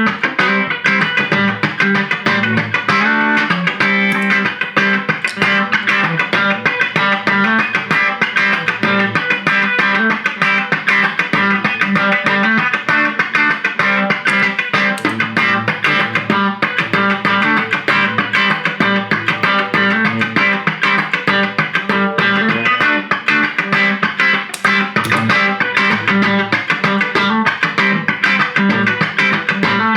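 Fender Stratocaster electric guitar played through a Vox Pathfinder 15R amp: a steady, unbroken run of quickly picked single notes and chords at an even level.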